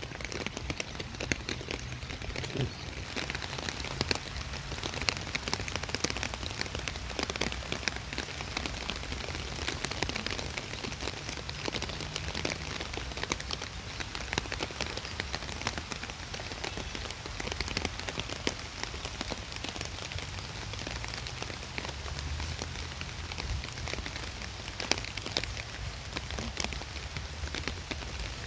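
Steady rain falling: a continuous hiss dense with small sharp ticks of nearby drops, over a low rumble.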